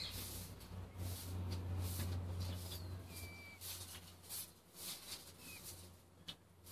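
Rustling and handling noise over a low rumble that is strongest in the first few seconds, with a few short, high chirps scattered through.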